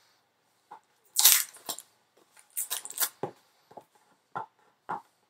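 Plastic air-cushion packing crinkling and rustling as it is pulled from a camera box, in several short bursts, the loudest about a second in.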